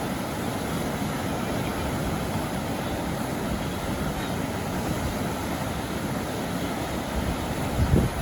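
Steady low rumbling noise, with a louder low buffet just before the end.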